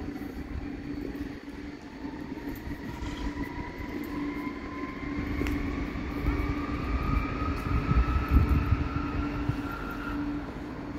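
Electric train running at the station, its motor whine rising slowly in pitch over a steady hum, with a low rumble that grows loudest about eight seconds in.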